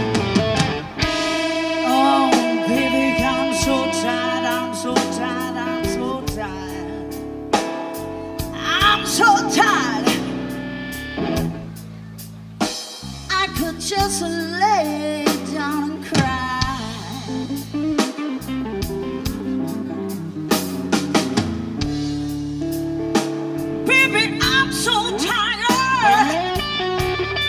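Live blues band playing: electric lead guitar with bending notes over bass guitar and a drum kit.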